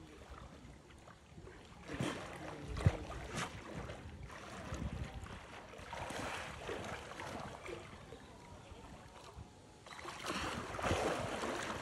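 Pool water sloshing and splashing as a hippo calf surges through it, with a couple of short knocks about two and three seconds in. A bigger splash comes near the end as it pushes into a floating toy.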